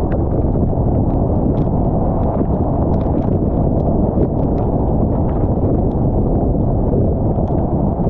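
Steady low road and tyre noise from a car travelling on a wet highway, dotted with scattered light ticks several times a second.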